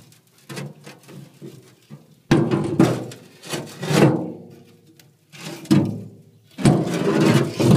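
Metal forge parts being handled and knocked together: several clanks, each ringing on briefly, the loudest about two and a half seconds in and near the end.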